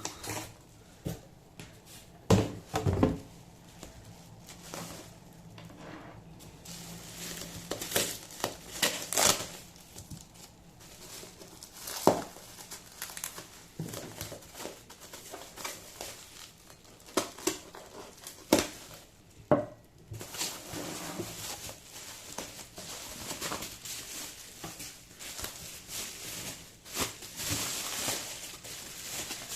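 Packing material being crinkled and torn by hand while ceramic bonsai pots are unwrapped from a parcel, heard as irregular crackles and rustles. The rustling becomes denser and steadier in the last third.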